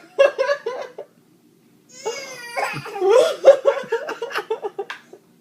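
Baby coughing in short, voiced, rhythmic hacks that sound close to laughter. There is a quick run of about five in the first second, then after a pause a high squeal and a longer run of hacks until near the end.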